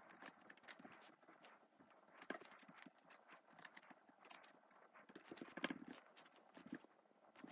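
Near silence with a few faint, scattered taps and soft scrapes of a rice paddle pressing and spreading vinegared sushi rice over a sheet of nori on a bamboo rolling mat.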